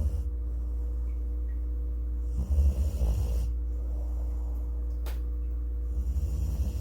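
Golden retriever snoring in her sleep: three low, rattling snores about three seconds apart, the middle one the loudest.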